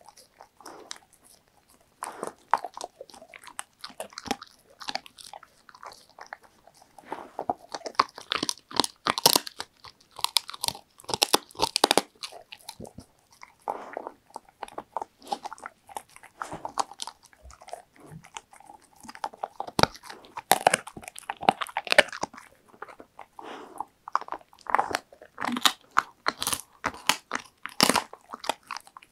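Labrador retriever chewing a homemade dried shark cartilage treat: irregular runs of crisp crunches and bites, starting about two seconds in, with short pauses between runs.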